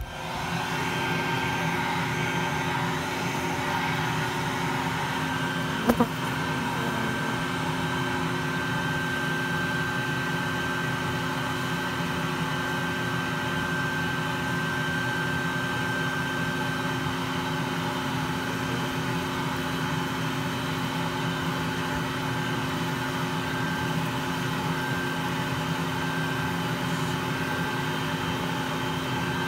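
Bee vacuum running steadily, its hose drawing honey bees off the inside of a hollow column. A single sharp knock about six seconds in.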